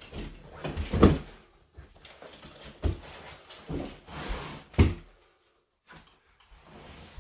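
OEX lightweight folding camping cot being handled, with its fabric bed rustling and its frame knocking several times; the sharpest knocks come about one second in and near five seconds.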